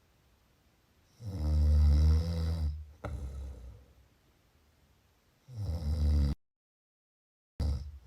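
A person snoring. A loud, low snore comes about a second in and lasts about a second and a half, followed by a shorter, fading breath. Another snore around five and a half seconds cuts off suddenly into dead silence, and a new one starts near the end.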